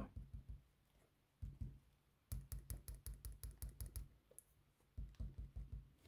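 Rotring 800 mechanical pencil's metal tip tapped rapidly on paper: faint light clicks, a few at first, then a fast run of about eight a second, and another short run near the end.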